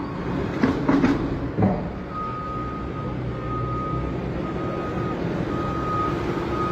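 Reversing alarm beeping from a machine working in a ship's hold of raw sugar, long steady beeps about once a second starting about two seconds in, over the machine's running engine. A few knocks come in the first two seconds.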